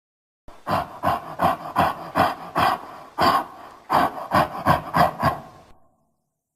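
Vocal creature sound effect: a run of harsh, rasping grunt-like breaths, about three a second, with a short break in the middle, stopping abruptly near the end.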